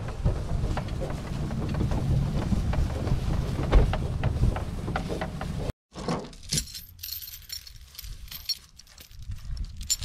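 Wind buffeting the microphone for the first few seconds; then, after a brief cut, a heavy steel chain clinking and rattling as it is carried and handled.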